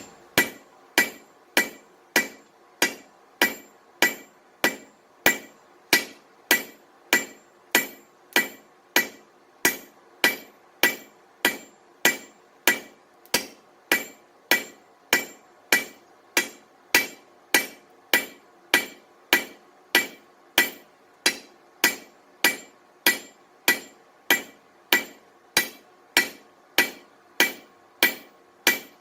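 Blacksmith's hammer striking hot steel bar stock on an anvil in an even rhythm, about one and a half to two blows a second. Each blow rings with a bright metallic ring.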